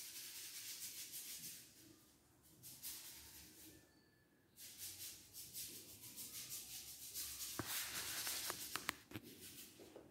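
Paintbrush scratching and scrubbing acrylic paint onto a wall in runs of quick strokes, with a few sharp clicks about three-quarters of the way through.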